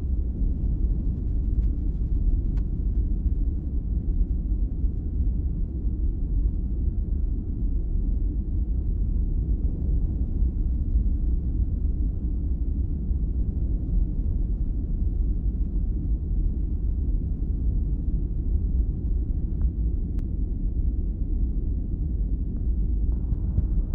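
Stethoscope auscultation recording of chest sounds: a steady low rumble.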